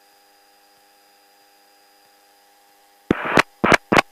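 Faint steady electrical hum on the aircraft's radio and intercom audio, broken about three seconds in by three short bursts of static crackle, the first the longest.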